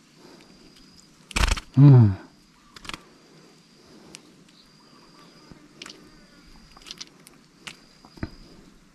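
Handling sounds in a small fishing boat: a loud knock about one and a half seconds in, a short grunt just after it, then scattered light clicks and taps. A faint high thin tone comes and goes in the background.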